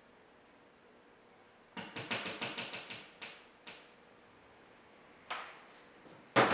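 Hammer tapping a long nail into a wall: a quick run of about ten light blows starting about two seconds in, then a single knock and a louder knock near the end.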